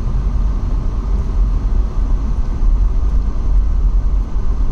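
Low, steady rumble of a car in motion, with road and wind noise.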